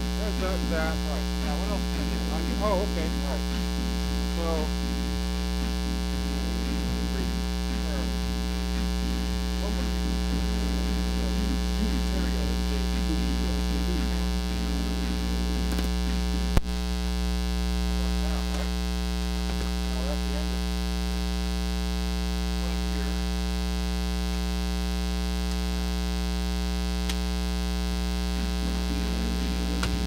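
Steady 60 Hz mains hum with many overtones, induced into the recording by powering the camera from its AC adapter: a ground fault in the recording, not a sound in the room. One sharp click a little past halfway.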